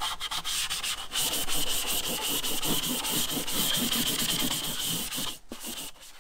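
Green abrasive scouring pad scrubbed quickly back and forth by hand over the textured aluminium side wall of a Hymer 590 camper, a light scuffing to clean the surface before painting. The scrubbing stops about five seconds in.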